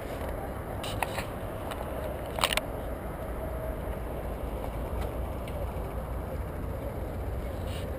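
Bicycle riding along a paved path, heard from a camera mounted on the bike: a steady low rumble of wheels and wind, with a few sharp rattles about a second in and again near two and a half seconds.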